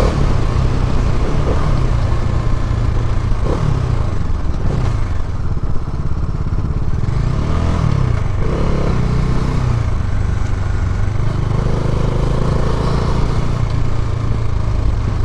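Bajaj Dominar 400's 373 cc single-cylinder engine and exhaust running under way, the engine note dropping and rising again a few times with the throttle, over a rush of wind and road noise.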